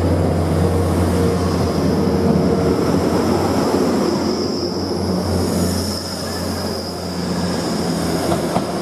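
Grand Central Class 180 diesel multiple unit moving past close by, its underfloor diesel engines running with a steady low drone, and a high whine above it.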